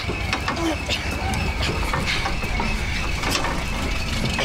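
Fairground ride machinery running: a steady low engine rumble with scattered clicks and rattles and a thin, steady high whine.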